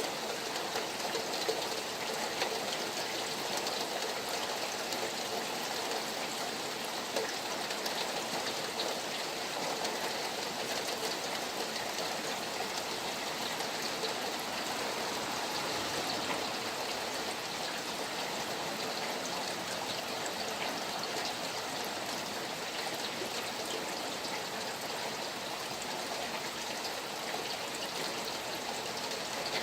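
Rain falling beside a flowing stream: a steady rush of running water with many small drop ticks scattered through it.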